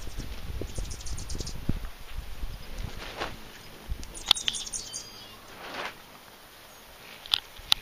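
Hummingbirds at a sugar-water feeder giving two bursts of rapid, very high-pitched chipping chatter, the second mixed with squeaky twittering notes. Two sharp clicks near the end.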